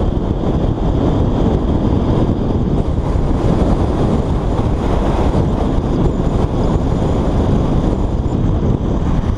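Steady low wind rumble buffeting the microphone of a GoPro Hero3+ mounted on the outside of a moving car, with the car's road noise beneath.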